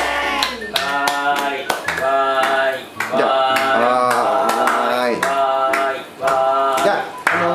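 Voices chanting 'wāi' (Japanese for 'yay') over and over in a sing-song cheer, about once a second, with hand clapping.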